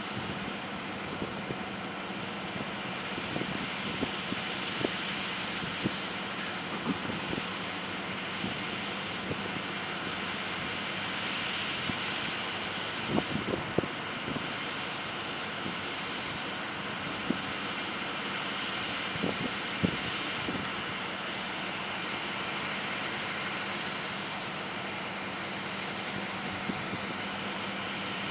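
Heavy diesel engines of the heavy-haul transporter and trucks running steadily while the oversize load moves, with a few short knocks and clicks, several together about halfway through.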